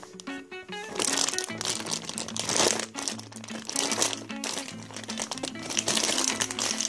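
Plastic crinkling and rustling in repeated surges from about a second in, from a squishy toy's plastic wrapper being handled. Background music with a steady bass line plays underneath.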